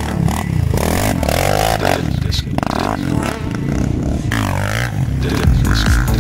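Quad bike engine revving up and down again and again, with some clattering.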